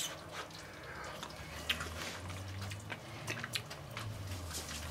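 Tasting a spoonful of hot meat-and-tomato sauce: quiet, irregular mouth clicks and smacks over a low steady hum.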